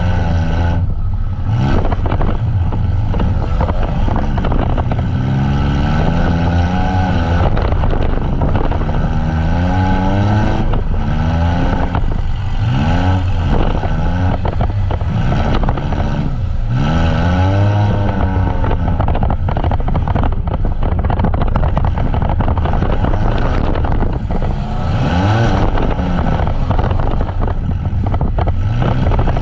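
Demolition derby vans' engines revving hard and backing off over and over, the pitch climbing and falling every second or two. Several engines are running at once over a steady low rumble.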